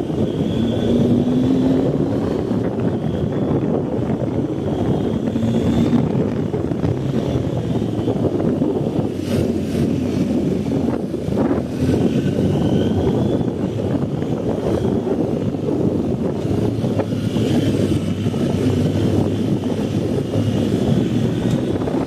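BMW R 1250 GS boxer-twin engine running under way, over a steady rushing noise from the ride. Its pitch rises a few times as it pulls.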